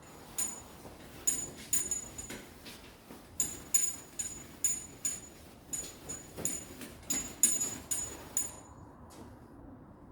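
Trigger spray bottle of alcohol squirting onto a car hood, a quick run of about fifteen short hissing squirts, often two a second, stopping near the end.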